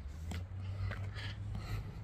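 Footsteps of a person walking, about two a second, over a steady low rumble on the microphone.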